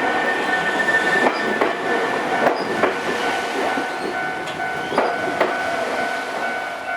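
Nankai electric train rolling slowly over a crossover, its wheels clacking on the rail joints and points in pairs of sharp clicks as each bogie's two axles pass. A steady high tone sounds underneath.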